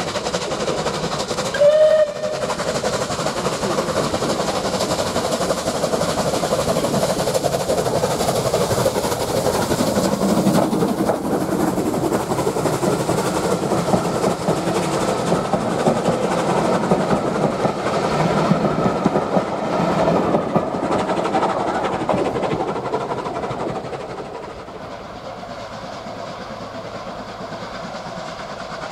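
Steam train running on the line, with a short whistle blast about two seconds in. The running noise then carries on steadily and eases off about five seconds before the end.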